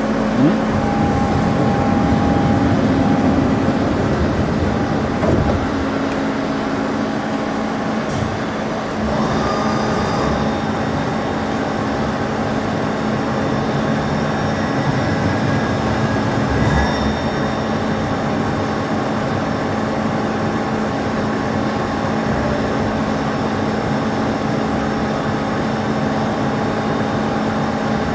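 Heyligenstaedt Heynumat 5UK-800 CNC lathe running: a steady machine hum made of several fixed tones over a noisy bed, with a brief change in pitch about nine and again about seventeen seconds in.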